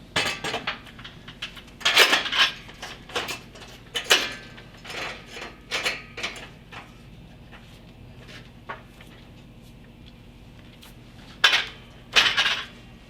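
Metal parts of a brake stand clanking and knocking as they are handled: a run of sharp clanks with brief ringing, a quiet stretch of a few seconds, then a few loud clanks near the end.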